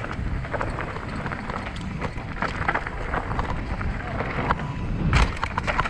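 Mountain bike running fast down a rocky dirt trail: tyres crunching over gravel and the bike rattling over bumps. There is a heavy thud about five seconds in as it rolls over a wooden slatted ramp.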